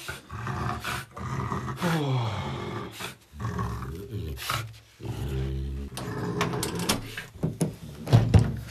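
French bulldog giving low growls and grunts with falling pitch over its sticks. Dry wooden sticks knock and scrape against each other and the mat, with the sharpest knocks near the end.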